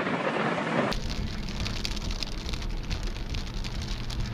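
Heavy rain. About a second in it changes to rain heard from inside a moving car: drops pattering on the windshield over a low road rumble.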